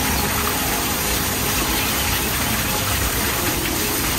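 Steady rushing noise with an uneven low rumble underneath and faint music in the background.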